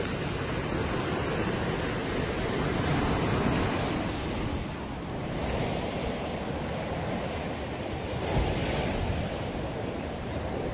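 Sea surf washing onto a sandy beach: a steady rush of breaking waves that swells and eases. There is some wind noise on the microphone and a brief low thump about eight seconds in.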